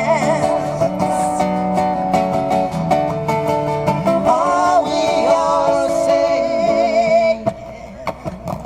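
A woman singing with wide vibrato over acoustic guitar in a live performance, holding long notes. The music drops away sharply near the end, leaving a few short knocks.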